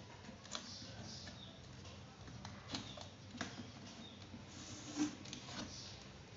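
A few light, scattered clicks and taps over faint hiss, the loudest about five seconds in, as of small plastic and metal parts being handled while a laptop is opened for a RAM and SSD upgrade.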